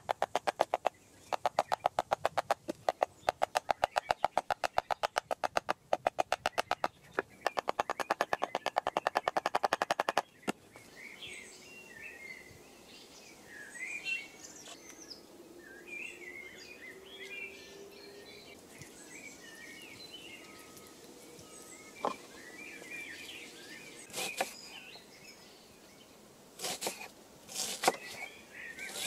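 A hatchet striking wood on a chopping block in a rapid, even train of sharp knocks, about five a second, which stops abruptly after some ten seconds. Then birds chirping in woodland, with a few knocks of a knife cutting on a wooden board near the end.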